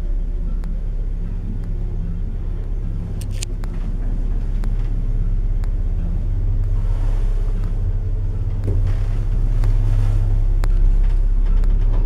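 Zremb elevator car travelling between floors: a steady low hum and rumble from the lift's drive, with scattered clicks and ticks. It grows a little louder in the second half.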